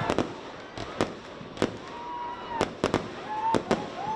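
Fireworks display: a quick run of sharp bangs, about a dozen in four seconds, some in close pairs.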